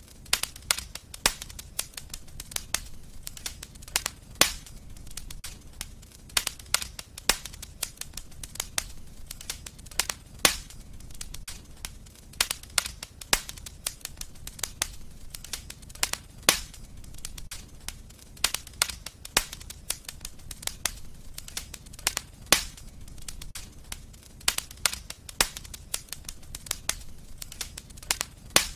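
Fire in a fireplace crackling, with irregular sharp pops, a few much louder than the rest, over a low steady rumble.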